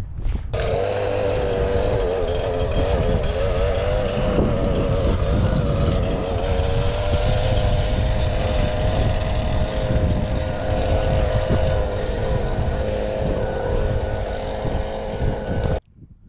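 A motor running steadily at speed: a wavering whine over a low rumble, starting and stopping abruptly.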